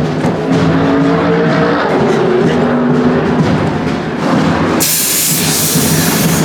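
Music with short held notes stepping in pitch, mixed with race-car sound. About five seconds in, a sudden loud rushing noise covers everything, then cuts off abruptly near the end.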